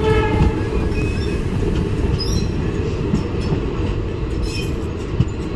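Local passenger train running, heard from inside the coach by an open window: a steady rumble of wheels on the rails with occasional clatter.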